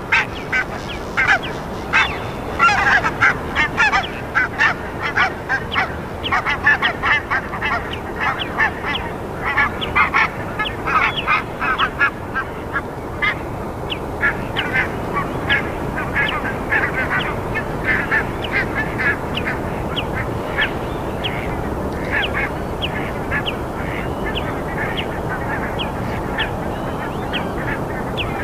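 Many birds giving short, rapid honking calls, dense and overlapping for the first dozen seconds and then thinning to scattered single calls, over a steady background hiss.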